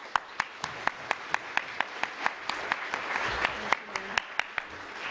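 Audience applause in a lecture theatre, with one person's claps standing out sharply at about four a second above the general clapping.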